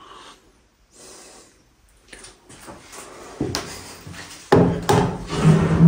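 Objects being handled indoors: faint rustling and small knocks, then a louder wooden knock and rubbing about four and a half seconds in, like a cupboard or drawer being moved.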